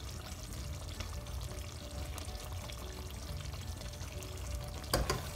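Thick curry bubbling in a pot while a spatula stirs it, with a sharp scrape of the spatula against the pan about five seconds in. Soft background music runs underneath.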